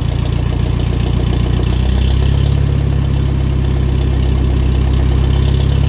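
Small farm tractor's engine idling just after being started with a little choke; its note shifts and gets a little louder about two seconds in.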